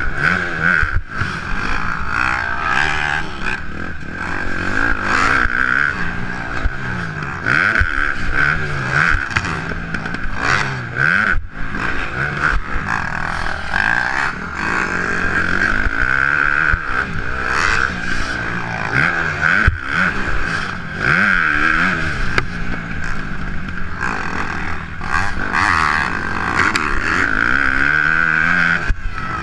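Dirt bike engine being ridden hard on a motocross track, revving up and down repeatedly through the gears and corners, heard close up from a helmet-mounted camera.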